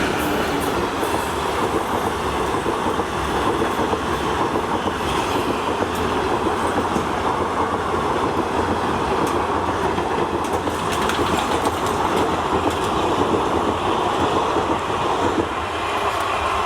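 Express passenger train hauled by a WAP-1 electric locomotive running along the track: a steady rolling rumble of the train in motion, with a few faint clicks from the wheels on the rails.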